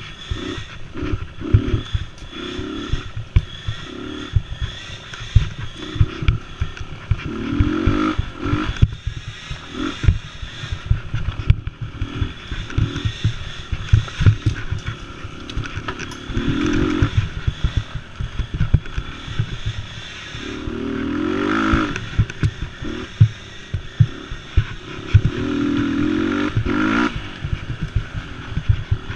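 Mini quad's small engine revving up and backing off over and over as it works along a rough woods trail, with a longer pull about two-thirds of the way through and again near the end. A steady run of short low knocks and clatter from the quad jolting over the bumps comes through underneath.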